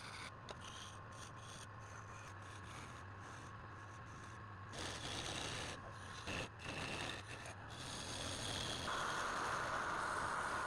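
Tool scraping and rubbing against wood, a continuous rough scratching over a steady low hum; it gets louder about nine seconds in.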